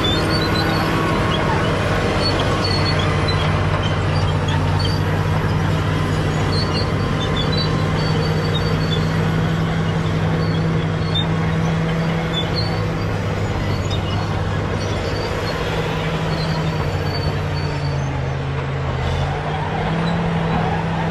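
Caterpillar D7G bulldozer's diesel engine running steadily under load, with faint clinks from the tracks. Its pitch drops briefly near the end, then comes back up.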